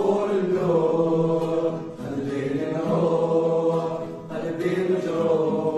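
Music: a song with a voice singing long, drawn-out phrases about two seconds each, over a steady low note.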